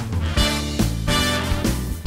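Instrumental outro music with a steady beat.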